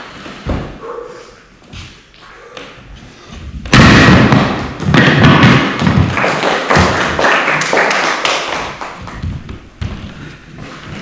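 A wooden board breaking under a karate hand strike, a single sharp thud about half a second in. From about four seconds in, a loud run of knocks and thuds goes on for several seconds.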